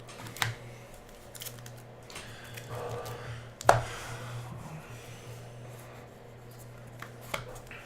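Trading cards and their plastic holders being handled on a table: soft rubbing and rustling with a few sharp clicks, the loudest about halfway through. A steady low hum runs underneath.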